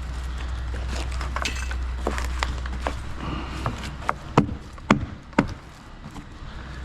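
Scattered knocks and clicks of work being handled by hand, with three sharp knocks about half a second apart a little past the middle, over a steady low hum.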